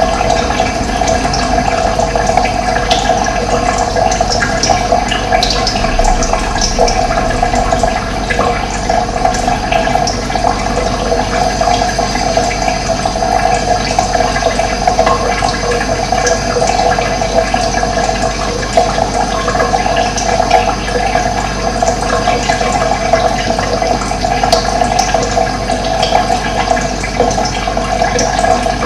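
Running water flowing steadily, a dense, even rush, with a few short, high bird chirps a few seconds in and again near the end.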